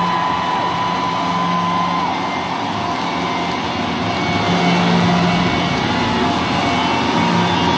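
Live rock band and stadium crowd, recorded from the audience: a loud, distorted wash with long held high notes, one lasting about two seconds at the start and more near the end.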